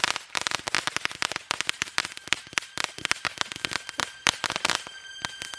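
Fireworks crackling: a rapid, irregular run of sharp pops, many a second. Music comes in near the end.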